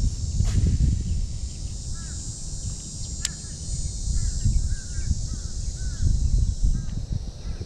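Outdoor ambience: a low, uneven rumble on the microphone with birds calling in short chirps, often several in quick succession, over a steady high hiss. A couple of sharp clicks sound near the start and about three seconds in.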